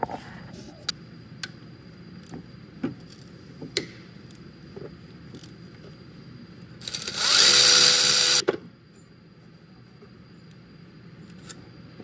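A handheld power tool runs in one burst of about a second and a half, a little past the middle, driving out a bolt on the alternator. Light clicks and clinks of hand tools and metal parts come before and after it.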